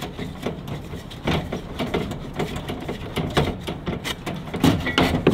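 An empty 1-pound propane canister being unscrewed by hand from a Mr. Heater Buddy portable heater: a string of irregular metallic clicks and scrapes.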